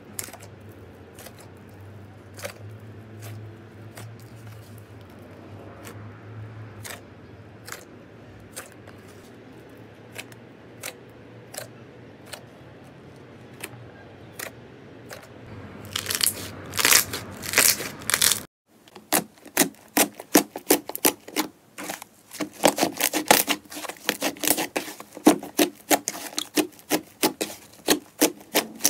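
Slime being poked, stretched and squeezed by hand, giving scattered sticky clicks and pops that grow denser about 16 seconds in. After a short break at about 18 seconds, a thicker slime is pressed with both hands, giving a fast run of loud popping crackles as trapped air bubbles burst.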